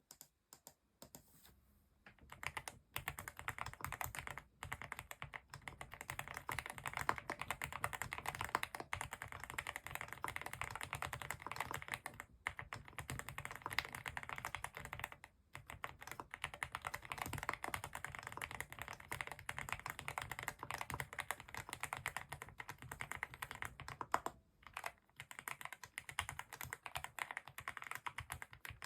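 Fast, continuous typing on a Vter Galaxy80 mechanical keyboard with factory-lubed Gateron Milky Yellow Pro linear switches. The typing pauses briefly a few times.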